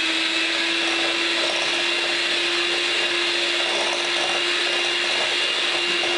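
Handheld electric mixer running steadily, its beaters whipping eggs and brown sugar in a glass bowl, with an even motor whine.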